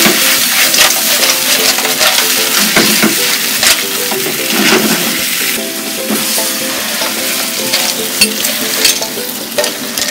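Clams with sweet basil sizzling in a wok while being stirred and tossed with long cooking chopsticks, shells clicking and clattering against the pan.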